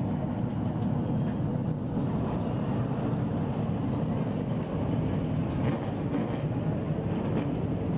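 A field of late model stock cars racing on the track, their V8 engines blending into one steady, continuous din with no single car standing out.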